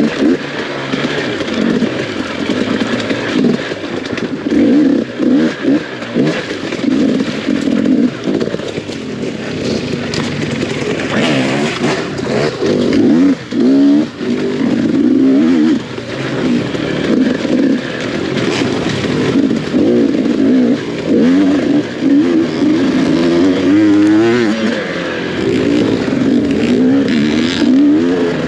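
Off-road racing motorcycle engine heard from on board, revving up and down over and over as the throttle is opened and chopped. The note drops out briefly a few times around the middle.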